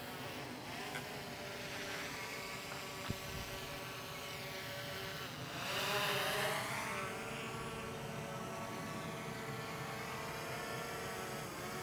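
DJI quadcopter drone's propellers whining during the descent to land, several steady tones with a brief louder swell and shifting pitch about halfway through. There is a single small click about three seconds in.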